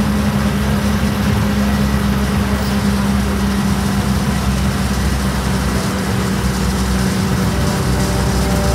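A vehicle engine running steadily, with a constant low hum and rumble.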